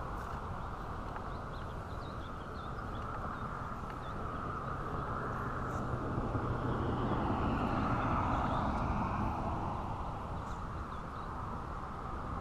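Steady low outdoor rumble that swells between about four and nine seconds in and then eases, with a few faint bird chirps above it.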